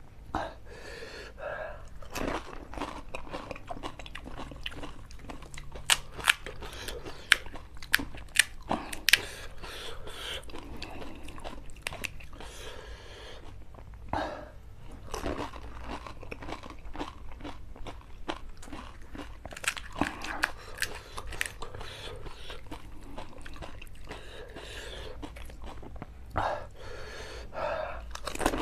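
Close-miked eating of pani puri: crisp fried puri shells filled with spiced water crunching and cracking between the teeth, with chewing in between. A run of loud, sharp cracks comes about a quarter of the way in.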